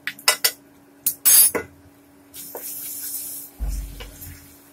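A spatula scraping and knocking against an aluminium kadhai as spiced green peas are stirred, followed by a hissing sizzle from the pan for about a second, then a low thud near the end as the pan shifts. A faint steady hum runs underneath.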